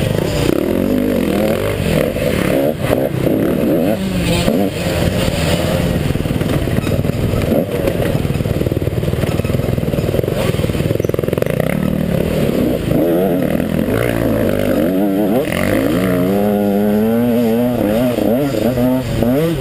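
KTM 150 XC two-stroke dirt bike engine revving up and down over and over as it is ridden hard off-road, with scattered knocks and clatter from the bike.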